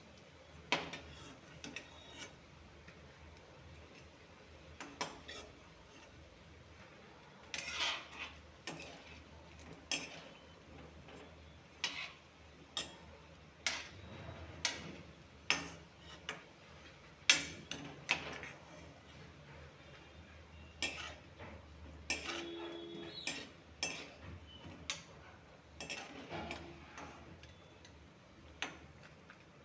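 A metal spatula clinking and scraping against a steel kadai as gram-flour dumplings are turned in frying oil. The knocks are sharp and irregular, coming roughly once a second, some louder than others.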